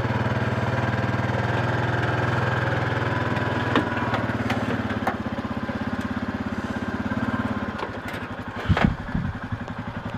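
Honda ATV engine running steadily on the throttle as it climbs loading ramps, then dropping to a pulsing idle about eight seconds in, with a couple of loud knocks shortly after.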